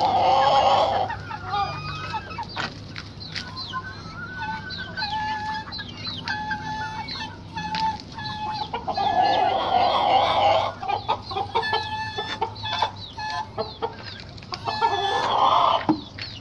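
Chickens clucking in a coop, short calls one after another, with three louder drawn-out calls: at the start, about nine seconds in, and near the end. Scattered light knocks and clicks come in between.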